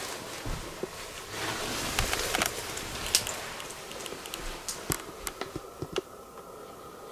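Rustling and soft footsteps with scattered small clicks and knocks, from someone moving about with a handheld camera. A stretch of louder rustling comes a second or two in, and the clicks thin out toward the end.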